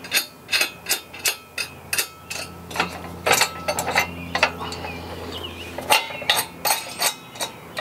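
Steel mounting hardware for a spare tire carrier (U-bolts, bolts and plates) clinking and knocking against a square steel bumper as it is fitted by hand: a run of sharp metallic clinks, two or three a second.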